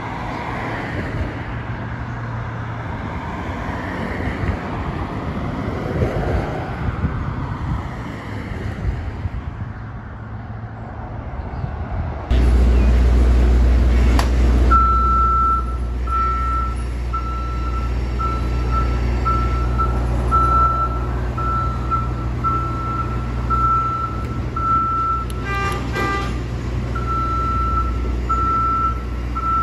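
Road traffic passing over a bridge deck, then the sound changes abruptly about 12 seconds in to a boom lift's engine running with a steady low hum. From about 15 seconds in, the lift's motion alarm beeps rapidly and steadily as its boom control levers are worked, pausing briefly near 26 seconds.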